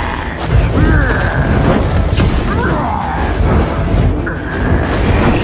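Battle sound effects over dramatic film music: deep booms and crashing impacts, with high, wavering cries about a second in and again around three seconds.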